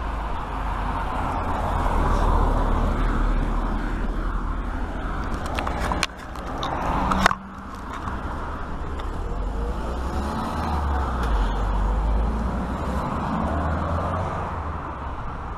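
Steady rumble of a bicycle ride on a tarmac road, wind on the microphone over tyre and road noise. It swells about seven seconds in and cuts off suddenly, then carries on as before.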